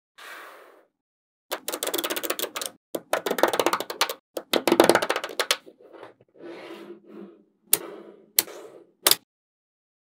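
Magnet balls clicking and rattling against each other in quick dense runs as panels of them are handled and snapped onto a structure, then three single sharp snaps near the end.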